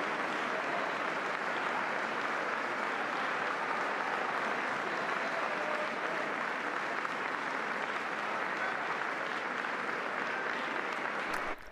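Large crowd applauding steadily, cutting off suddenly near the end.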